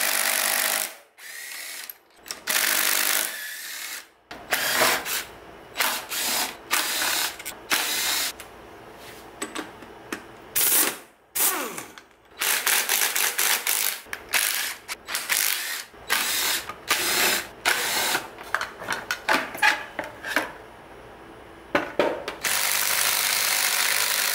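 Cordless impact driver hammering in bursts as it loosens bolts on a motorcycle's front wheel, brake caliper and fork, with the clicking of a hand ratchet in the many short bursts between. The longest impact runs come near the start, a few seconds in, and near the end.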